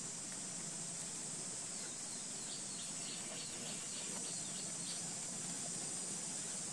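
Steady high-pitched insect drone, with a faint run of quick bird chirps from about two seconds in until near the end.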